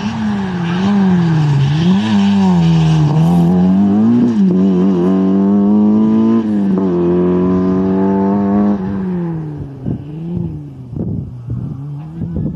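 Peugeot 106 XSi rally car's four-cylinder engine driven hard, its pitch climbing and dropping again and again through throttle lifts and gear changes. Near the end the pitch falls and the engine becomes quieter and more uneven.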